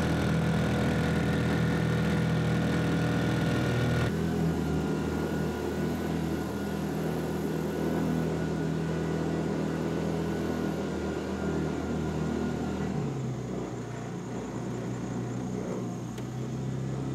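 Small boat motor running steadily, its engine note shifting twice.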